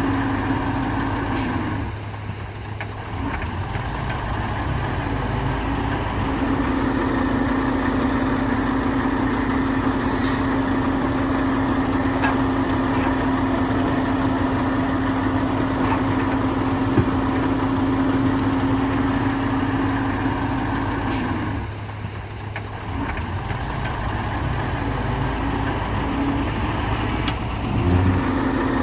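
Heavy diesel engine of earthmoving machinery running steadily with a strong hum. The engine note drops away twice, about two seconds in and again about two-thirds of the way through, and comes back up a few seconds later each time.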